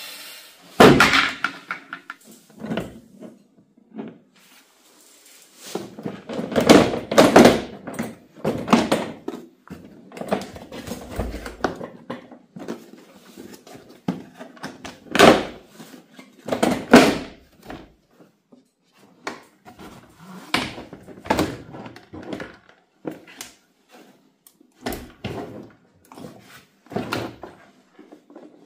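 Irregular knocks, clunks and clicks of hard parts of a cordless lawn mower being handled, with several louder thumps scattered through, the strongest about a second in and around the middle.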